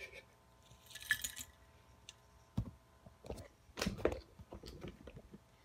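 Scattered light clinks and knocks of handling around a glass jar of charcoal chunks, with a short rustle about a second in.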